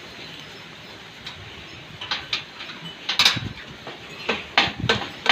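A series of sharp knocks and clatters of hard objects being handled and set down, starting about two seconds in, over a steady hiss of wind.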